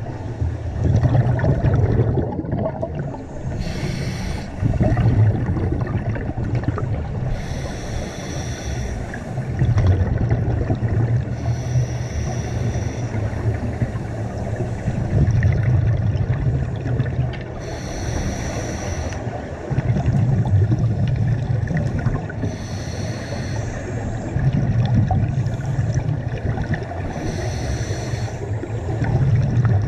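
Scuba diver breathing through a regulator underwater: a short hissing inhale about every four to five seconds, each followed by a longer bubbling exhale.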